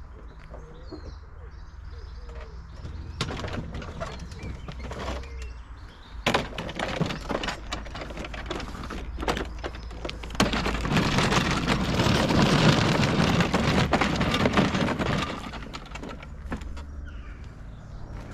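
Knocks and clatters as a STIHL RMA 443 C battery lawn mower is lifted out of a van. Then its plastic wheels rattle over a rough driveway for about five seconds while it is pushed with the motor off. Birds call in the background.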